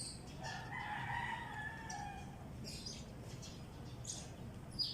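A rooster crowing once, a long call of about two seconds, with small birds chirping around it.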